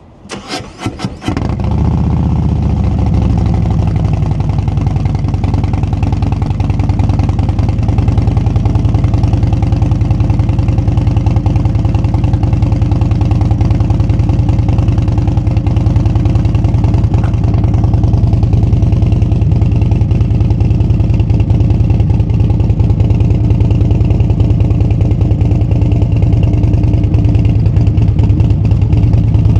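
Harley-Davidson CVO Road Glide's Milwaukee-Eight 121 V-twin cranks on the starter, catches about a second and a half in, and settles from a brief higher idle into a steady idle. It runs through TAB Performance BAM 4.5-inch slip-on mufflers, a louvered baffle on the right and a straight-through zombie baffle on the left.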